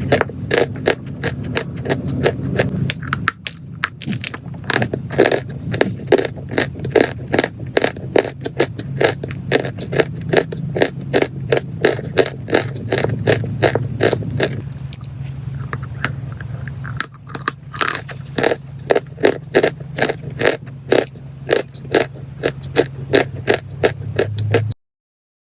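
Chalk and clay being crushed in a rapid run of crisp crunches and crackles, several a second, over a steady low hum. The crunching thins out briefly twice and cuts off suddenly near the end.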